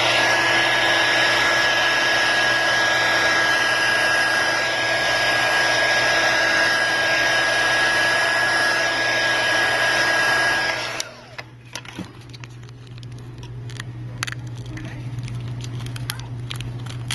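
Hot-air blower running steadily with a high whine, heating a phone's cracked screen glass to soften its adhesive; it cuts off about eleven seconds in. After it stops come faint scattered clicks and scrapes of a tool working small pieces of glass.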